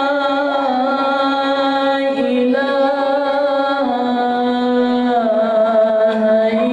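A man's voice calling the adhan, the Islamic call to prayer, in the Kurd maqam, sung into a handheld microphone. He holds one long melismatic note that steps down in pitch several times and climbs back up near the end.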